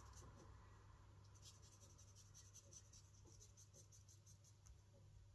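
Faint scratchy strokes of a Stampin' Blends alcohol marker colouring on card, clearest about a second and a half in, barely above a low steady room hum.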